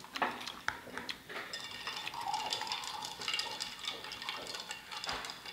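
Faint clinks and taps of cups and dishes on a table, with a few sharp clicks in the first second and another near the end.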